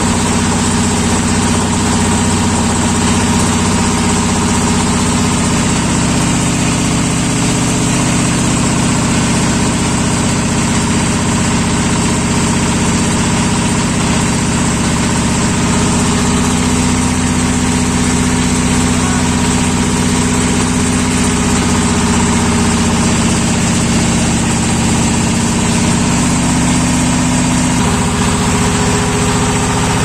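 A small river boat's engine running steadily, heard from on board, with a constant low drone; its note shifts slightly about two seconds before the end.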